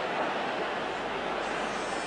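Steady noise of a large stadium crowd, a dull wash of many voices with no single sound standing out.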